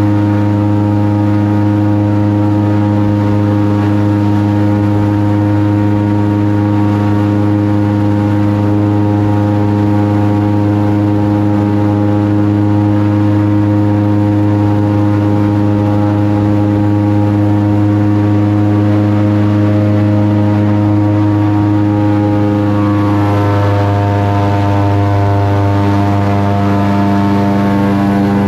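Airboat's engine and large air propeller running steadily at speed, a loud even drone; a little past the middle the pitch shifts slightly.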